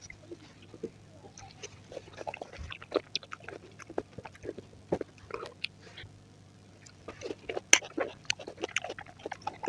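Close-miked chewing of fruit: irregular wet smacks, squelches and crisp bites, with a brief quieter pause and a single sharp loud snap after about seven and a half seconds.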